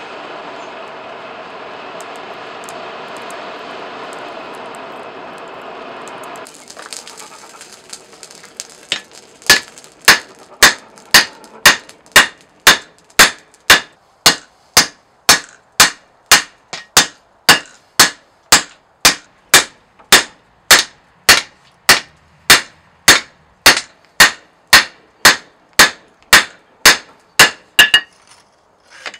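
A coal forge's air blower runs with a steady rushing noise and stops about six seconds in. After a few faint clicks, a hand hammer strikes red-hot leaf-spring steel on an anvil in an even rhythm of about two sharp, ringing blows a second, forging the axe head.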